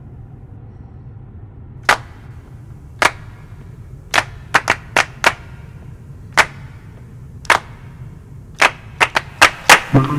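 A series of sharp snaps or claps at uneven intervals, beginning about two seconds in and coming quicker toward the end, over a low steady hum.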